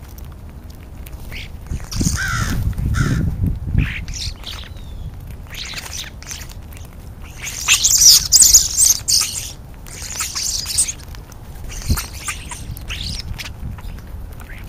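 American crows and European starlings calling in short, harsh, irregular bursts, with the loudest cluster about eight seconds in.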